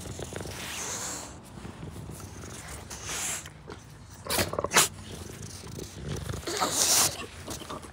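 Dogs grunting and snuffling in low rumbling breaths, with a few louder short noises about halfway and again near the end.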